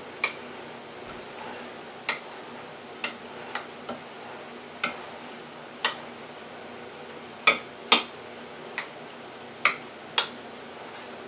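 A spoon clicking against a bowl as rotini pasta is stirred in heavy cream: about a dozen sharp clicks at irregular intervals, the loudest pair near three-quarters of the way through.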